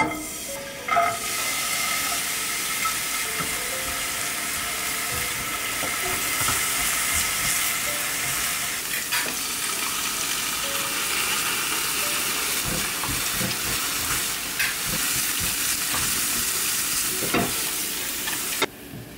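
Food sizzling in a hot frying pan as it is stir-fried, with a few knocks of a utensil against the pan. The sizzle cuts off suddenly near the end.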